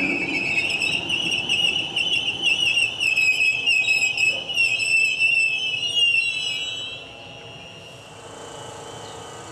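DART electric commuter train pulling away with a high, wavering whistle-like squeal that fades about seven seconds in.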